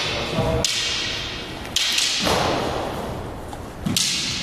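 Sparring sticks landing three sharp cracks, each with a short echo in the hard-walled court.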